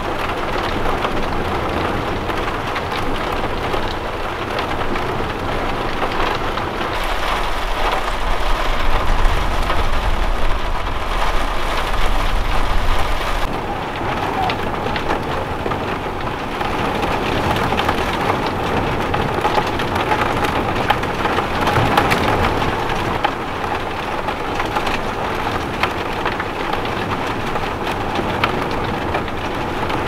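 Storm noise of heavy rain and strong wind, a steady rushing hiss, with a deeper rumble from about seven to thirteen seconds in.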